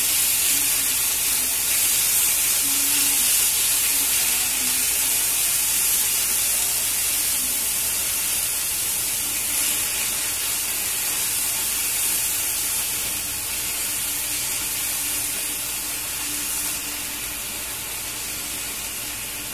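Crushed pineapple and its juice sizzling in a hot cast-iron skillet of melted butter and brown sugar, giving off steam. A steady hiss that slowly dies down.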